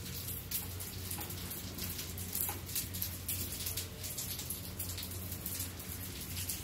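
Soft, irregular wet clicks and taps as sticky seitan bacon strips are picked up and shifted about on a ceramic plate by hand, over a steady low hum.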